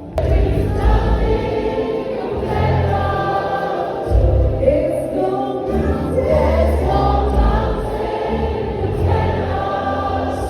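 Choir singing a gospel song over band accompaniment with a heavy bass line, starting abruptly.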